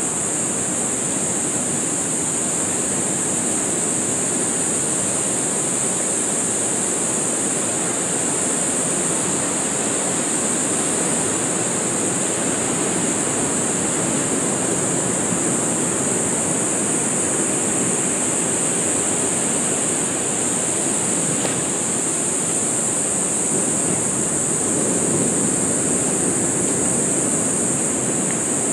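Ocean surf washing steadily on a beach, swelling slightly now and then, under a constant high-pitched drone.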